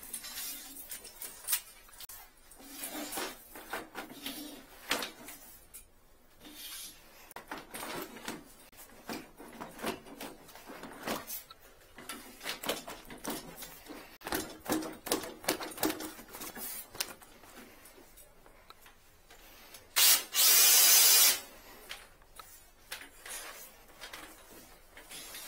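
8 mm steel drain-cleaning cable rattling and clicking against its drum as it is pulled out by hand and fed into a floor drain. About twenty seconds in, the drum-type drain machine's motor runs in one loud burst of a little over a second.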